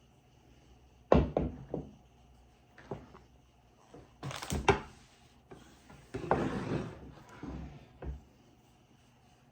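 Kitchen handling clatter: a sharp knock about a second in, then several more knocks and thuds, with two brief scuffing stretches in between.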